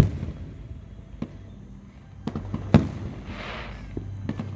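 Fireworks exploding: a loud bang right at the start, a second strong bang nearly three seconds in, smaller pops between, and a brief crackling hiss just after the second bang.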